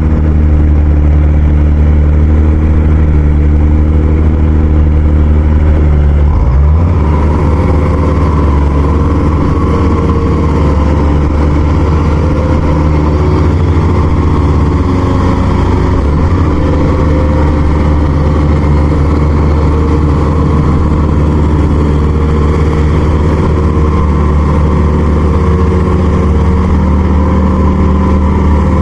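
A heavy farm machine's engine running loud and steady, close by. About six and a half seconds in its pitch dips briefly and it settles at a new engine speed.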